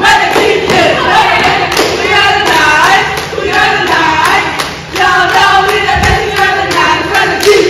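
A group of girls chanting a cheer in unison, punctuated by sharp hand claps and foot stomps.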